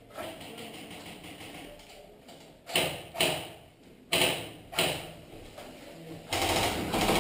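Four sharp shots in two pairs, each pair about half a second apart, typical of airsoft guns firing in a game. From about six seconds in, a steady rushing noise comes up.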